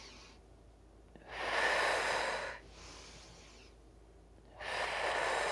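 A woman breathing out audibly twice, two slow exhales each about a second and a half long and roughly three seconds apart.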